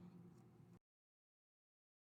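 Near silence: a faint trailing sound fades out under a second in, and the audio then drops to dead silence.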